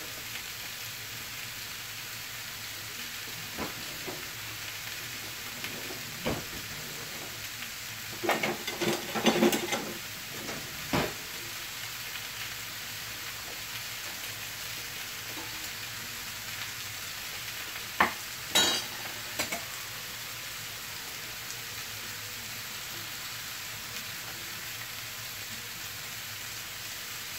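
Chicken breasts sizzling steadily in oil on a hot electric grill pan, with a few short knocks and clatters: a cluster about eight to eleven seconds in and another around eighteen seconds.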